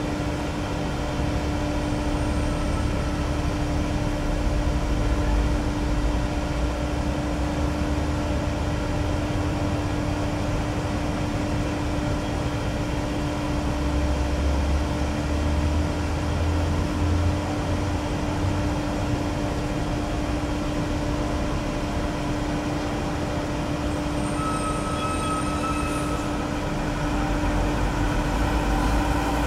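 Boeing 747-400F's four jet engines on final approach: a steady rumbling drone with a constant low hum, the rumble swelling near the end as the aircraft nears touchdown.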